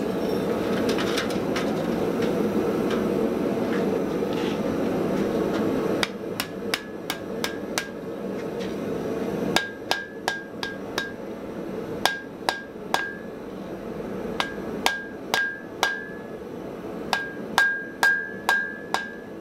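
A steady rushing noise for about six seconds, then a hand hammer striking red-hot Damascus steel on an anvil in quick bursts of four to six blows, each blow with a brief ring. This is the forge weld closing the folded tip of the sword blade.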